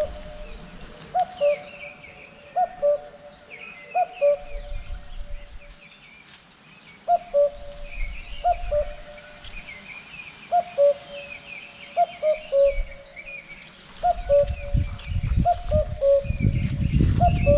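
A cuckoo calling its two-note falling "cu-ckoo" over and over, about once every second or two with a few short pauses, while other small birds chirp higher up. A low rumble, like wind on the microphone, comes in during the last few seconds.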